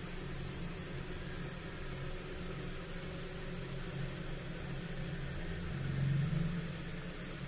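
A steady low machine hum with a faint hiss, briefly louder about six seconds in.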